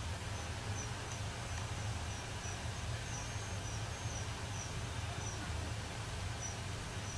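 Outdoor ambience: a steady low rumble with faint, short high-pitched chirps from small birds or insects, recurring irregularly about once or twice a second.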